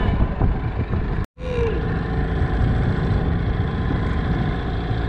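Outboard motor of a small dinghy running steadily while the boat trolls a fishing lure. The sound drops out for a moment just over a second in.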